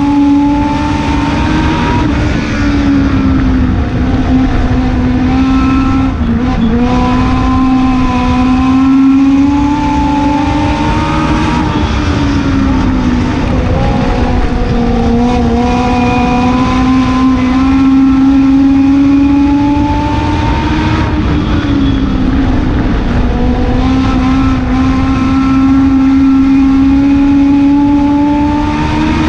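Legend car's Yamaha four-cylinder motorcycle engine racing at full throttle, heard from inside the cockpit. The engine note climbs along each straight and drops back every few seconds as the car lifts for the corners. Other cars' engines and tyre and wind noise run underneath.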